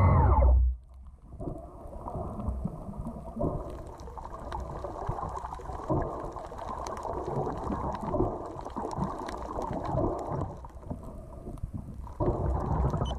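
Muffled underwater sound picked up by a sealed action camera: a dull rush of water with scattered crackling clicks, cut off sharply near the end.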